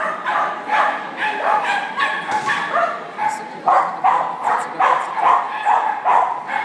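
Dog barking over and over in short, high-pitched yips, about two or three a second, getting louder and more rapid about halfway through.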